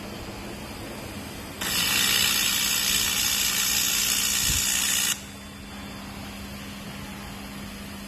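Platform laser welding machine running a weld pass on a stator: a hiss that switches on abruptly about one and a half seconds in and cuts off sharply some three and a half seconds later, over a steady low machine hum.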